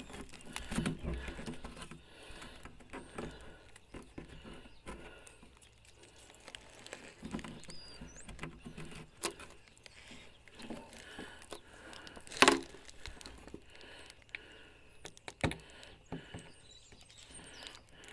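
Fingers picking and peeling adhesive stickers off a new plastic headlight assembly: irregular small scratches, crinkles and clicks, with one sharper knock against the plastic housing about twelve seconds in.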